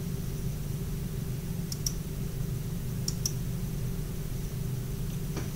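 Two quick pairs of sharp clicks at a computer, about a second and a half apart, over a steady low hum.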